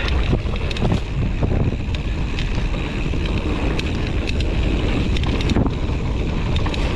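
Wind buffeting an action camera's microphone during a fast mountain bike descent, over tyres running on a dirt singletrack trail, with frequent short clicks and knocks from the bike rattling over rough ground.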